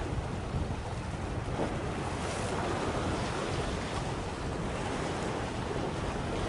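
Wind buffeting the microphone in a steady low rumble, over a constant wash of sea.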